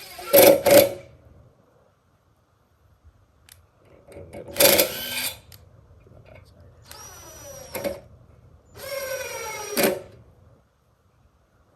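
Power drill driving screws into wood in two runs of about a second each, the motor's pitch dropping as the screw bites. Sharp knocks come first, about half a second in.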